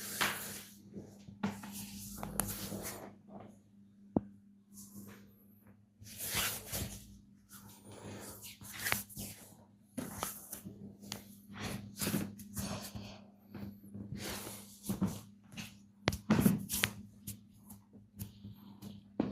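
Massage by hand on bare skin: an irregular series of short swishing rubs with a few sharp taps or slaps, over a steady low hum.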